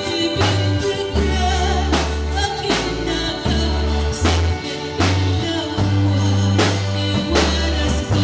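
A woman singing an Ilocano song into a microphone with a live band behind her: electric bass holding low notes and a drum kit keeping a steady beat, all amplified through PA speakers.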